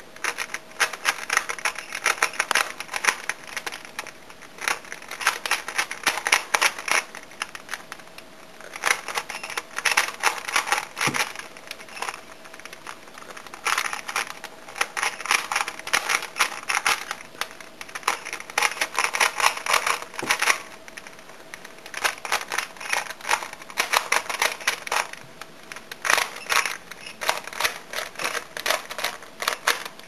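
3x3 Rubik's cube being turned fast in a speedsolve: rapid bursts of plastic clicking and clacking from the turning layers, broken by brief pauses.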